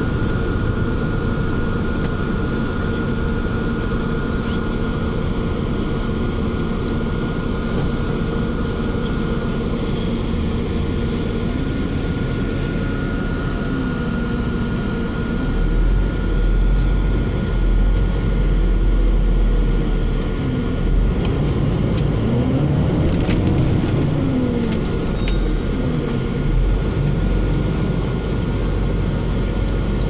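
Inside a moving city vehicle: steady running rumble with a thin, steady high whine. Through the middle, a motor pitch glides down and up several times, and a heavier low rumble sets in about halfway.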